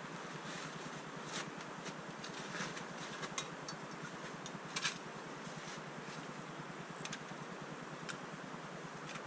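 Camping stove gear being packed into its box and bag by hand: scattered light clicks and rustles, the sharpest a quick double click about five seconds in, over a steady hiss.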